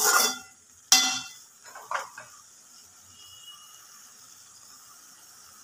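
Metal spoon scraping and clinking against an aluminium kadai as a thick, wet vegetable mixture is stirred, about three strokes in the first two seconds. After that only a faint steady hiss from the simmering pan.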